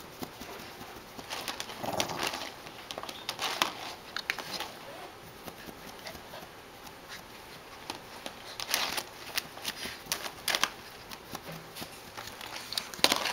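Irregular crinkling, rustling and sharp clicks as a Shih Tzu paws at and pushes a flexible corrugated plastic tube, coming in short flurries a few times with quieter gaps between.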